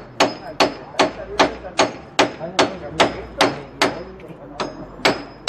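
Hammer striking a chisel against a door to force it open: a steady run of sharp blows, about two and a half a second.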